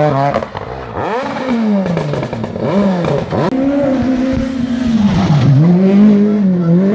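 Rally car engines revving hard, the pitch repeatedly climbing and dropping as they accelerate, shift gear and lift off. There is a brief dip in level about half a second in, where the picture changes to another car.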